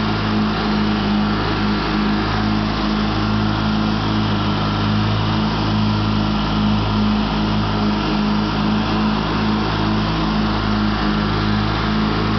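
Craftsman LT1000 riding lawn tractor's engine running steadily at throttle while mowing, with an even pitch and level.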